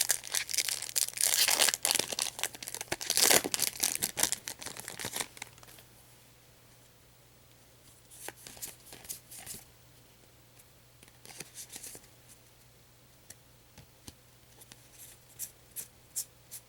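Foil wrapper of a trading-card booster pack being torn open and crinkled for about five seconds, followed by a few faint, scattered rustles and ticks.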